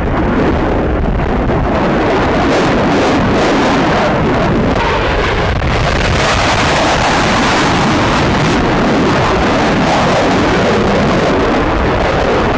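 Steady jet engine noise from a fighter jet in flight, with wind buffeting the microphone.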